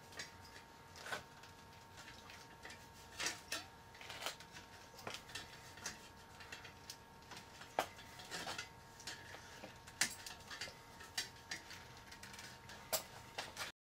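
Copper tubing being coiled by hand around a small propane cylinder: irregular light clicks and taps of the tubing against the metal tank, a few a second, cutting off abruptly near the end.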